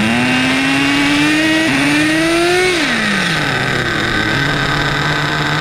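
Two small two-stroke nitro RC truck engines running. One revs up with a steadily rising pitch for nearly three seconds, then falls back to idle, while the other idles steadily underneath.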